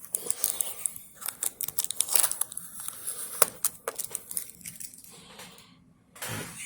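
Adhesive tape being peeled off a replacement laptop screen bezel: a run of crackling rips and small clicks that dies away about five and a half seconds in.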